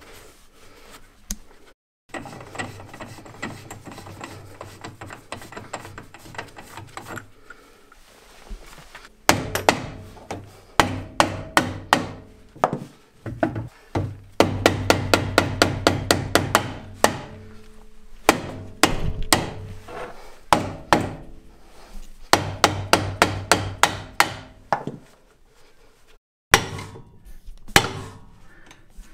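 Runs of rapid, sharp metal knocks, a few seconds each, as a rust-stuck VW Beetle rear brake drum is hammered to free it from the hub.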